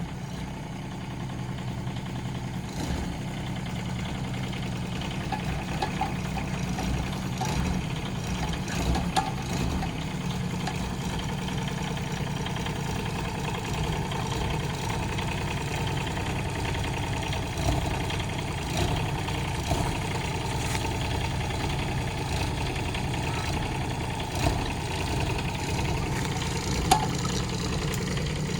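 Kubota K008-3 mini excavator's three-cylinder diesel engine running steadily, with a few short knocks or clanks from the machine at work, the sharpest near the end.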